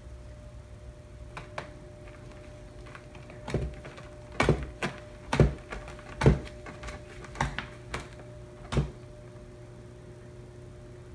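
A series of irregular sharp knocks and thumps, about nine over several seconds and loudest in the middle, over a faint steady hum.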